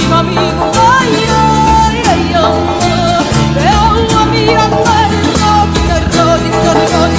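Music: a song with a lead singer holding notes with vibrato over a band with bass and a steady beat.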